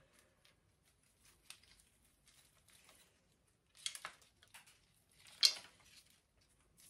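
Rustling and crumbling of old orchid substrate being picked loose by hand from a phalaenopsis root ball, with small bits dropping onto a metal tray. Two louder rustles come about four and five and a half seconds in.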